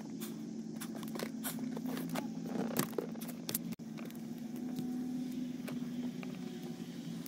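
Electrical tape being pulled off the roll and wrapped tightly around a wire, with scattered small crackles and clicks from the tape and the handled wire. A steady low hum runs underneath.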